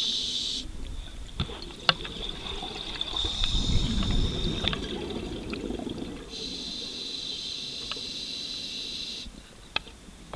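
Scuba diver breathing through a regulator underwater: hissing inhalations carrying a steady high whine, alternating with a low bubbling exhalation, plus a few sharp clicks.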